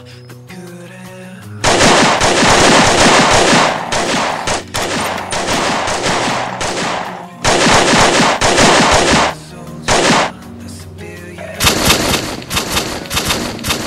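Pistol gunfire sound effects, rapid shots coming in three long volleys with a single shot between the second and third, starting about a second and a half in over quieter background music.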